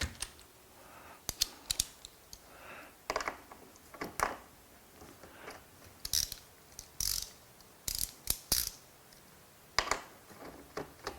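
Hand ratchet wrench clicking in short, irregular bursts while nuts and bolts on a seat rail are tightened, with occasional metal clinks of the parts being handled.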